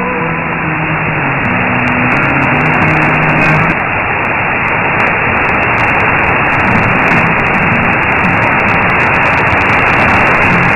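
Shortwave AM broadcast from LRA 36 Radio Nacional Arcángel San Gabriel on 15476 kHz, heard through a receiver as a steady hiss of static. Faint music fades in and out beneath it, plainest in the first few seconds and again near the end: the signal is weak and fading.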